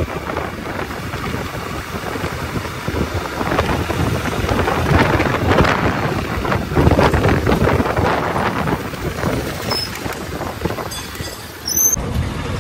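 Wind buffeting the microphone of a camera on a moving motorcycle, a loud rumbling rush that swells and eases, with the bike and road noise underneath.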